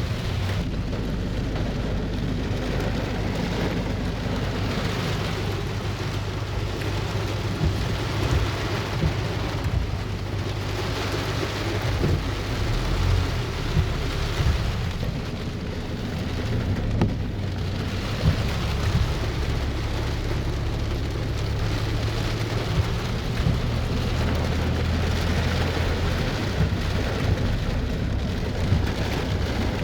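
Steady rainfall, with a constant deep rumble underneath and occasional sharper spikes.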